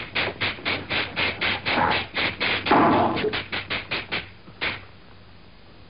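A rapid run of sharp slapstick hits, about four a second, as from repeated slapping or pounding. The hits stop about four and a half seconds in, leaving only faint film-soundtrack hiss.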